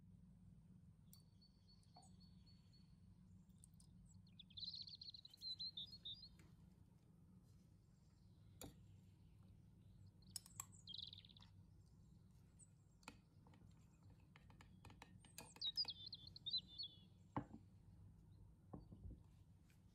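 Small birds chirping in short bursts of quick, high twittering, three times across the stretch, with a few light clicks and taps in between and a faint low hum underneath.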